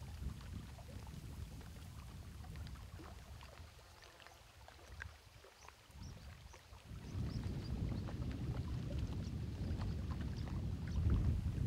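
Wind buffeting the microphone in low gusts, easing off in the middle and picking up again about seven seconds in, over faint small splashes of water lapping at a rocky lake shore.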